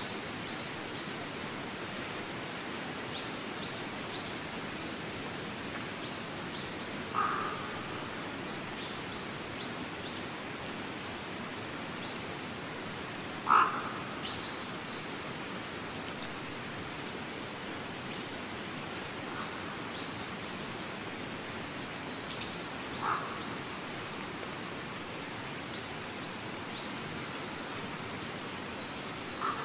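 Outdoor ambience: a steady background hiss with small birds chirping on and off, a high thin trill twice, and a few short lower calls.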